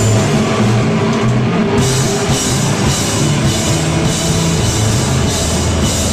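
Live rock band playing loud, heavy rock: a drum kit with repeated cymbal crashes over electric guitar and a moving bass guitar line.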